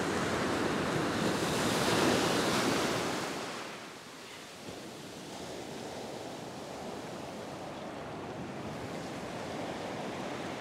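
Beach surf washing up the sand in the shallows: a wave's wash swells to its loudest about two seconds in and dies down by about four seconds, leaving a steadier, quieter wash.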